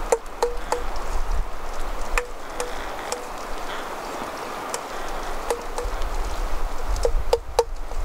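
Metal spoon stirring a thick mayonnaise-and-fish filling in a stainless steel bowl, with scattered clinks of the spoon against the bowl, each ringing briefly. The clinks come singly at first, then three in quick succession near the end.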